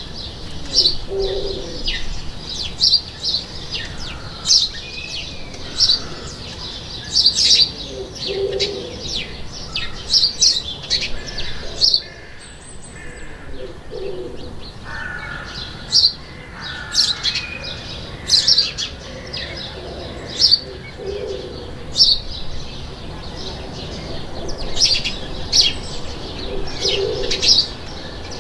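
Small birds chirping: many short, sharp high calls throughout, with a lower call repeating every several seconds.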